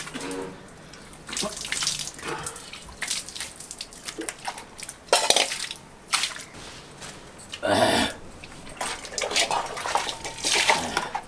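Water splashing and pouring as a man washes his face and hands, scooping water from a bucket with a small plastic mug, with a few louder splashes now and then.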